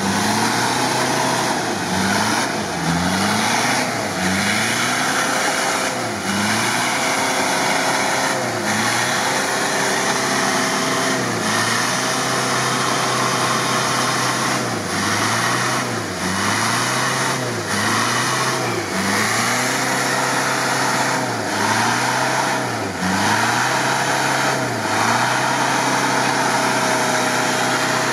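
Lifted Toyota off-road 4x4's engine revved up and down again and again under load, about once a second or so, as the truck churns through deep mud.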